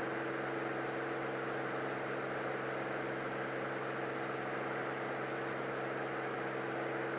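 Steady drone of a Cirrus SR22's six-cylinder piston engine and propeller in cruise descent, heard through the headset intercom: an even hum with a hiss over it that does not change.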